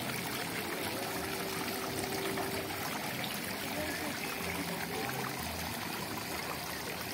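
Tiered stone garden fountain with water trickling and falling steadily from its basins.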